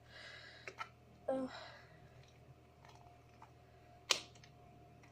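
A person's breathy sighs, one at the start and a second, partly voiced one just over a second in. Light clicks and taps of handling follow, with one sharp tap about four seconds in.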